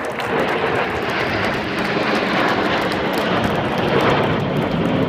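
A formation of Alpha Jet trainer jets flying past, giving a loud, steady jet-engine noise that builds up in the first second and then holds.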